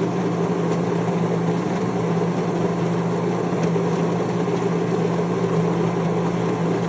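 The built-in coffee grinder of a MEROL super-automatic espresso machine grinding beans: a steady, loud motor whirr over a low hum.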